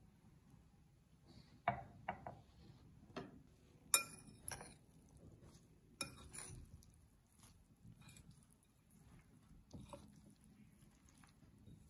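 Metal spoon clinking and scraping against a glass mixing bowl while stirring boiled jackfruit pieces with gram flour: scattered light clinks, the sharpest about four seconds in.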